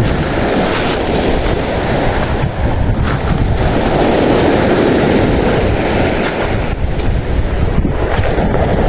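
Steady rush of sea surf mixed with wind buffeting the microphone.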